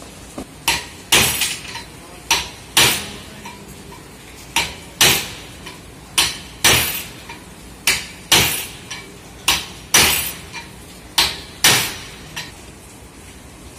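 Hand hammer striking a metal bracket clamped in a bench vise: sharp metallic blows in pairs about half a second apart, the second of each pair louder, with a new pair about every second and a half. There are seven pairs, and they stop near the end.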